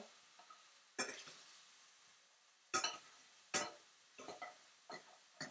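A spatula scraping and knocking against a skillet while chopped mushrooms are stirred. There are about half a dozen separate short scrapes and clacks, spaced irregularly.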